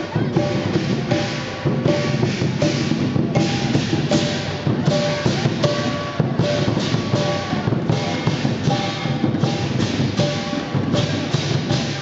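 Chinese lion dance percussion playing: a pounding drum with clashing cymbals in quick, repeated strokes.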